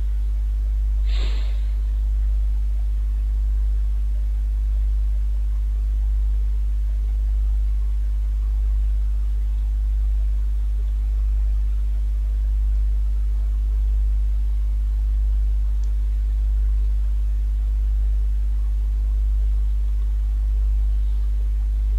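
Steady low electrical hum on the recording, with one short breath-like noise about a second in.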